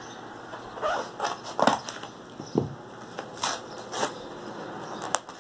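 Packaging of a mailed parcel being handled and opened by hand: a run of short, irregular crinkles and crackles.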